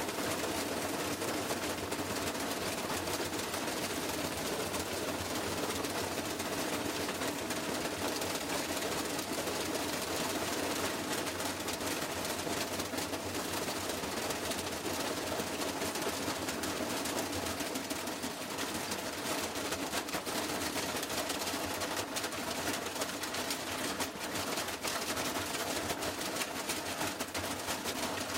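Washing machine running with a steady whirring noise from its motor and drum.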